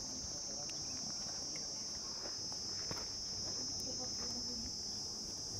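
Steady high-pitched insect chorus, with a few faint scrapes and ticks from hands working dry soil.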